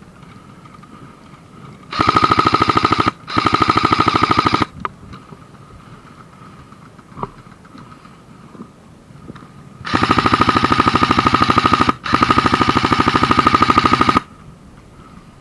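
Airsoft gun firing on full auto in four bursts, each a fast, even rattle: two short bursts close together about two seconds in, then two longer bursts of about two seconds each near the end.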